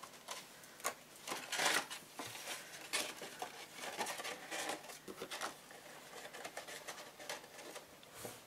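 Cardstock rustling and scraping as a small card box is turned in the hands and its card lid is slid down over the base, with a few soft taps.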